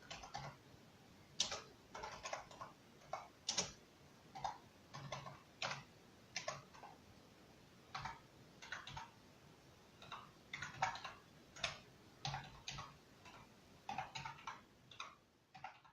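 Slow typing on a computer keyboard: single keystrokes clicking at an uneven pace, a few a second, with short pauses between groups.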